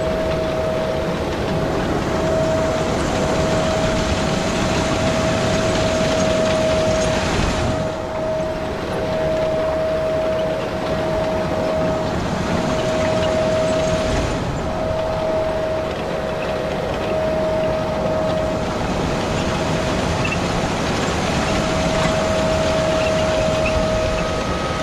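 Case IH 150 tractor running as it pulls a seeder sowing corn: a steady engine sound with a high, constant whine on top. The sound dips briefly about eight seconds in and again about fourteen seconds in.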